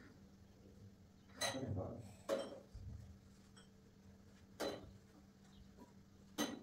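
Dishes and kitchen utensils clinking and knocking, four sharp separate clinks a second or two apart, the first ringing on briefly, over a faint steady hum.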